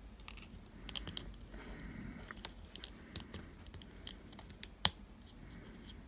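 Small plastic clicks and taps as a figure's feet are pushed and scraped against the pegs of its plastic display stand without clicking into place, with one sharper click about five seconds in.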